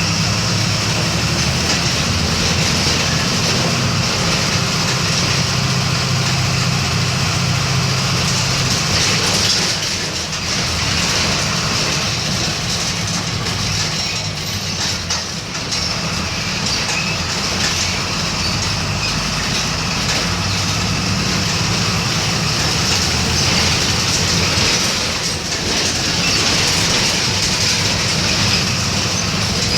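Volkswagen 17.230 EOD bus engine running under way, a steady low drone mixed with road and body noise. The engine note eases off about ten seconds in and pulls strongly again from about eighteen seconds.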